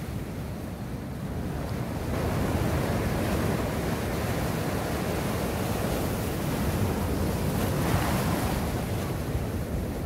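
Rough sea surf breaking and washing up a beach: a steady rush of waves that grows louder about two seconds in.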